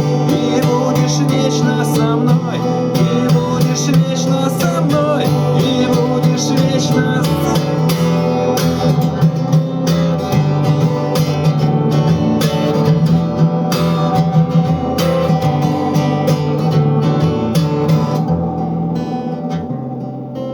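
Music: an acoustic guitar strumming the outro of a Russian rock song, with a wavering melody line over it for the first several seconds. It gets quieter and duller near the end.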